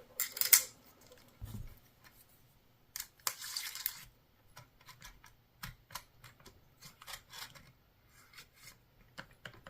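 Small parts being handled at a workbench: scattered light clicks and taps, with a short rustling rub about three seconds in.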